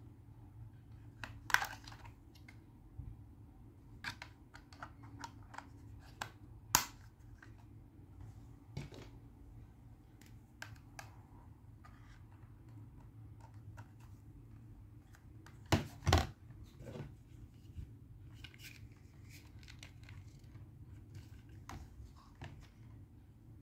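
Handling noise from a plastic video doorphone outdoor unit and its cables: scattered clicks, taps and light knocks as it is turned over and a small connector is fitted into its back. The loudest knocks come about a second and a half in, near seven seconds, and twice close together around sixteen seconds, over a faint steady low hum.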